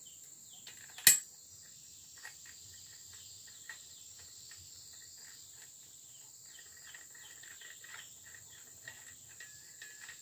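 Metal parts handled while a brush cutter blade is bolted onto the cutter head: one sharp metallic click about a second in, then faint scattered ticks as the bolt and nut are turned by hand. A steady high insect drone runs underneath.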